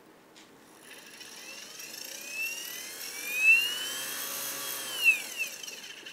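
Milling spindle motor starting from rest on its first test run, its whine climbing in pitch and loudness as the speed-control knob is turned up. It drops back about five seconds in, then rises again near the end.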